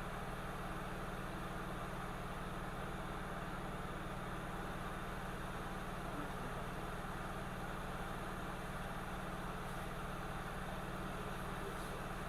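Steady hum and airy hiss of a hot air rework station's blower running while a small chip is heated off a MacBook Air logic board.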